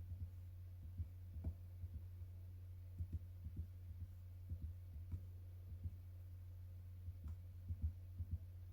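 Keys of a SwissMicros calculator being pressed one after another, a run of short, soft clicky taps at an uneven pace, over a steady low hum.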